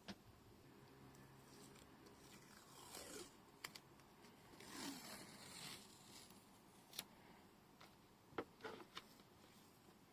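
Faint rustling and scraping of paper craft materials being handled, with two longer scrapes and a few light ticks.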